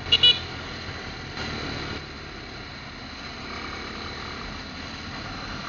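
Two short, loud horn beeps close together just after the start, then the steady engine and road noise of a motorcycle riding in traffic.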